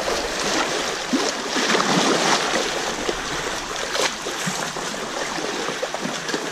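Fast water rushing and splashing down a narrow, rocky irrigation ditch, a steady hiss.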